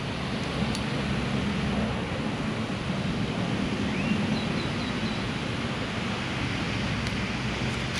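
Steady outdoor wind noise on the microphone, with a few faint high peeps about four seconds in.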